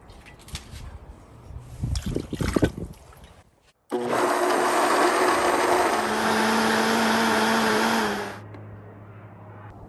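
A countertop blender runs at full speed, starting suddenly about four seconds in and puréeing tomatoes, peppers and onions for about four and a half seconds, its pitch stepping up slightly partway through. Before it come light clinks and scrapes of a pan being emptied into a pot.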